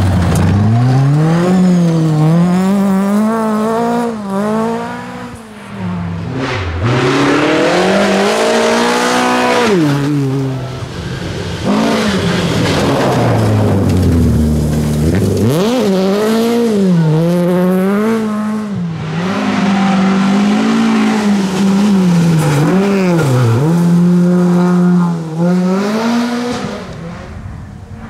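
Tuned Volvo rally car engine revving hard at full throttle, its pitch climbing and dropping again and again through gear changes and lift-offs, fading near the end.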